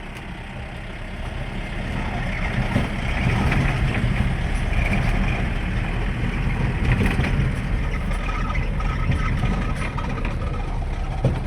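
Vehicle engine and road noise while driving, growing louder over the first few seconds and then running steadily.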